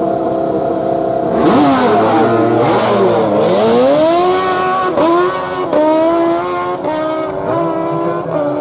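Two drag-racing superbikes launching and accelerating away down the strip. The engines hold a steady note at first, then about one and a half seconds in the revs jump sharply. After that the pitch climbs and drops back again and again as they shift up through the gears.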